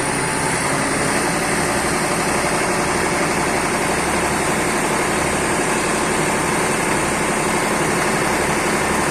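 Eicher tractor's diesel engine running at a steady speed while it drives the front loader's hydraulics to lift the bucket.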